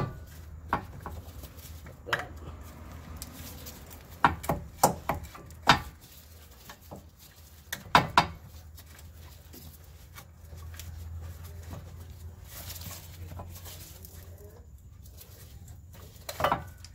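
Scattered metal clinks and knocks from handling a new front CV axle shaft and the wheel hub during fitting, with a cluster of sharper knocks about four to six seconds in and a double knock about eight seconds in, over a steady low hum.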